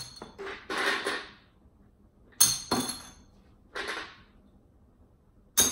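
Ring-toss rings thrown at a box of bottles: a string of sharp clinks with short rattles, one every second or two, as the rings strike the bottle necks and drop.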